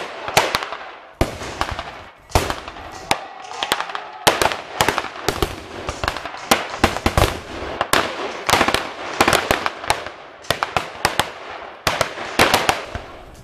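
Irregular volleys of sharp bangs from blank-fired rifles and pyrotechnic charges in a battle reenactment, often several shots a second with short gaps.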